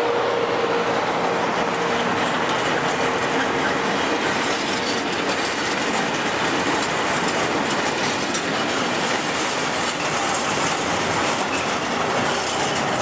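Freight train of container and tank-container wagons passing close by, a steady loud rumble and clatter of wheels on the rails. A steady tone near the start fades out as the electric locomotive goes by.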